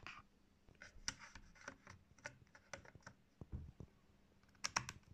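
Faint handling clicks and light scrapes of hard plastic, ending with a quick cluster of sharper clicks as a DJI Spark battery is slid into its charging hub.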